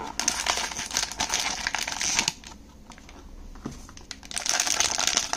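Foil blind-box bag crinkling and rustling as it is pulled from its cardboard box and handled, in two busy stretches with a quieter pause of about two seconds between them.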